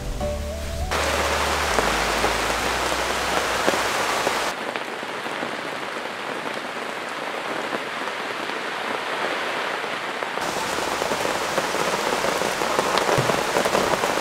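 Heavy rain falling steadily, heard from under a tent canopy. Its sound changes abruptly a few times as the shots change.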